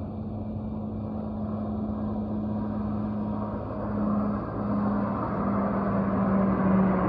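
Jet engine noise from a pair of F-35 fighter jets flying toward the listener: a rushing haze with a steady low drone beneath it, growing louder over the last few seconds. Each F-35 has a single Pratt & Whitney F135 turbofan.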